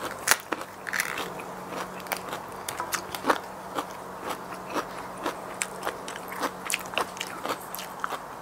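A person chewing crisp fresh salad vegetables close to the microphone: an irregular string of sharp, wet crunches.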